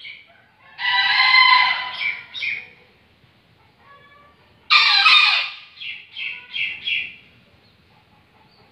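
Bekilus rooster crowing twice: each crow opens with one loud, drawn-out note and breaks off into a quick run of three or four shorter notes.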